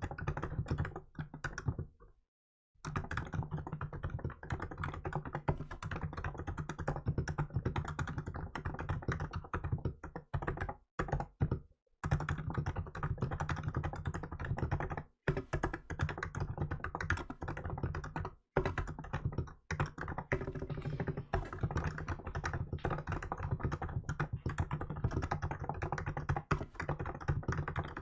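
Hansung GK868B electro-capacitive keyboard with milk keycaps, typed on fast and continuously: a dense stream of keystrokes with a few brief pauses, the first about two seconds in.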